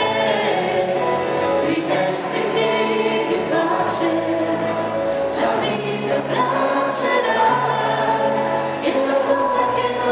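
A choir singing a worship song, with long held notes.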